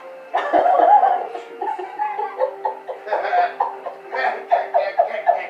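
A person laughing hard: a loud outburst, then a quick run of repeated 'ha' bursts, about four or five a second, in the second half.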